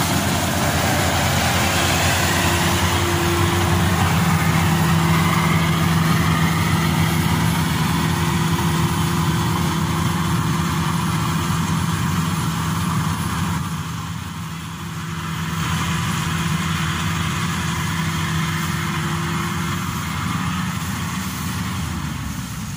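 Maxxi Bimo 102 rice combine harvester working in a paddy field: a steady engine hum under the hiss of its cutting and threshing machinery. The sound drops briefly about two-thirds in and eases near the end as the machine moves off.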